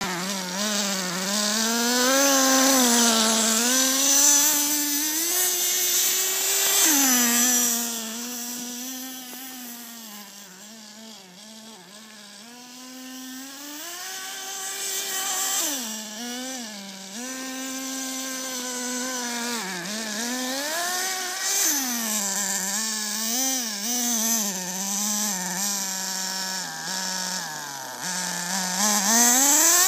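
Small nitro engine of a Redcat Tornado S30 RC buggy revving up and down as it is driven through snow, its pitch rising and falling over and over. It is loudest in the first several seconds and again near the end, and fainter about a third of the way in.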